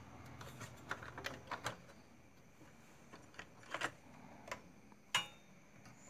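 Scattered clicks and light knocks of hands handling wire connectors and cables inside an opened amplifier chassis. The sharpest click comes a little after five seconds in.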